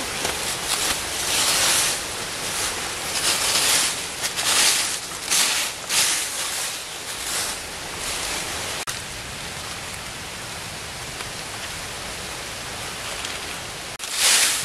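Dry bamboo leaves rustling and crackling as someone rummages through the leaf litter by hand. The rustles come in a run of irregular bursts over the first eight seconds, then give way to a steady hiss, with one more rustle near the end.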